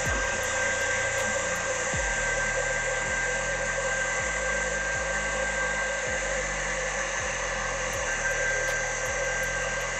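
Electric stand mixer's motor running steadily at speed, its wire whisk beating butter into meringue in a steel bowl, with a steady whine over the whir.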